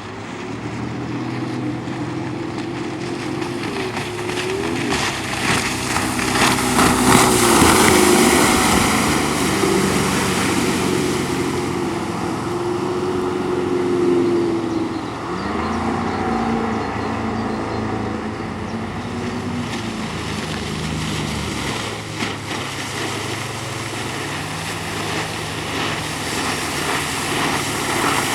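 Tohatsu 140 hp two-stroke inline-four outboard motor running under way, its pitch rising and falling with the throttle through the first half, then settling lower and steadier. A rush of water and wind is loudest about a quarter of the way in.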